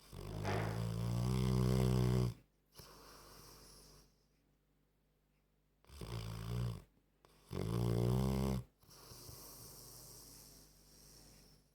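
Old Staffordshire terrier snoring in its sleep: three loud, pitched, human-like snores, the first about two seconds long and two more close together past the middle, each followed by a quieter breathy exhale.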